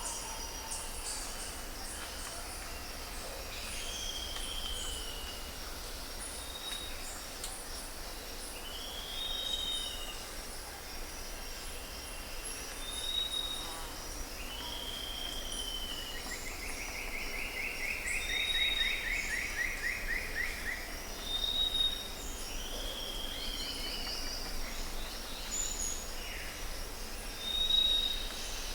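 Several birds calling: short high notes and arched whistles repeating every few seconds, with a longer rattling trill about sixteen seconds in, over a steady high buzz.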